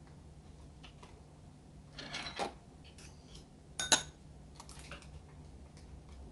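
Spoon clinking and scraping against a small bowl while marinade ingredients are added: a short scrape about two seconds in, one sharp clink just before four seconds, then a few lighter taps.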